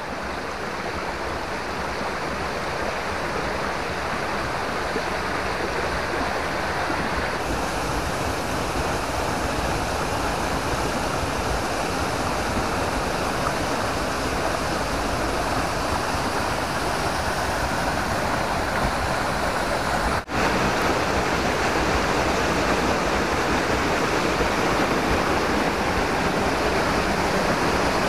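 Steady rushing of water over the rocks of a shallow stream below a small waterfall, growing a little louder. It cuts out for an instant about twenty seconds in.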